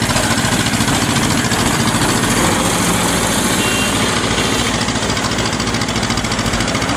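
Diesel engine of a crawler rice combine harvester running steadily close by, a dense, even rumble with no change in speed.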